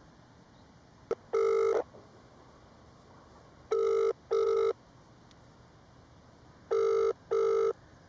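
Telephone ringing in the British double-ring pattern: a click about a second in, one short ring, then two pairs of short rings, each pair followed by a pause of about two seconds. It is a call going through, answered just after.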